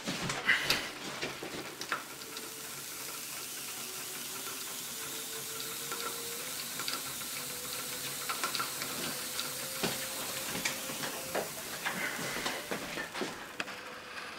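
Electrostatic carousel of the Franklin-motor kind running on high voltage: a steady crackling hiss with many irregular sharp ticks throughout.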